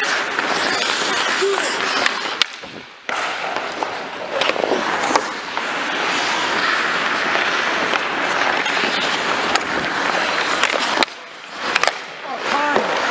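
Ice skate blades carving and scraping on the rink ice, with sharp clicks of hockey sticks striking the puck and each other. The scraping briefly drops out twice, about two and a half seconds in and again about eleven seconds in.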